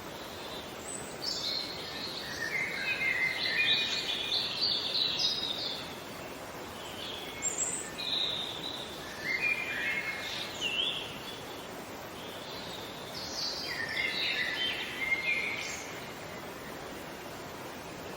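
Songbirds singing in three bursts of quick, high chirping phrases a few seconds apart, over a steady background hiss.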